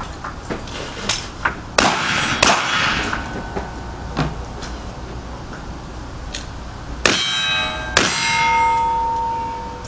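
Metal being struck: a few sharp clanks, then two loud ringing clangs about a second apart, the second ringing on and fading over nearly two seconds.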